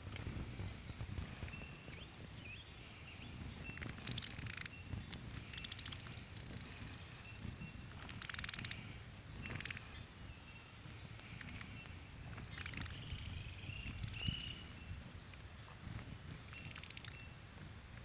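Outdoor wildlife ambience: short, buzzy animal calls every few seconds, over a faint steady high tone and a low rumble.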